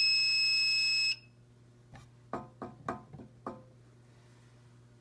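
Fire alarm sounder giving a steady high-pitched electronic tone that cuts off suddenly about a second in as the panel is reset. A few seconds later comes a short run of about five sharp clicks.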